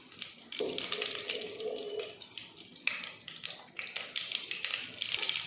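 Mustard and fenugreek seeds spluttering in hot sesame oil: a steady crackle of many small pops and sizzle as the seeds burst.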